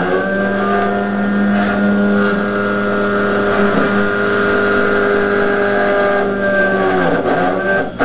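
35 W desktop laser cutter running while it cuts plywood: a steady mechanical whine made of several held tones as the head travels, wavering and shifting pitch briefly about seven seconds in.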